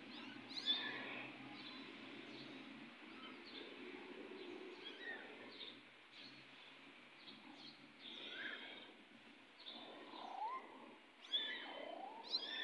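Kittens mewing in short, high calls at irregular intervals, with a louder call about a second in and another near the end.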